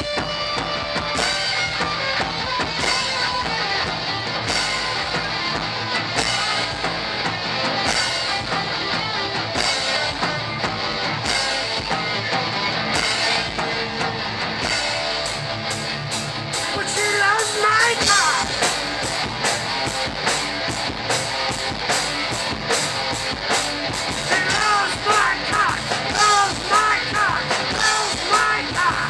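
Live rock band playing electric guitars over a drum kit, with a steady beat of drum and cymbal hits. A wavering high melodic line comes in about two-thirds of the way through and again near the end.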